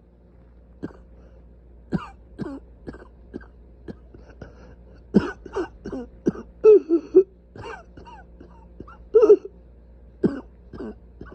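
A person coughing over and over in short, harsh bursts, some with a voiced, strained tone, the hardest coughs in a cluster about halfway through and again near the end; the uploader puts it down to severely inflamed airways.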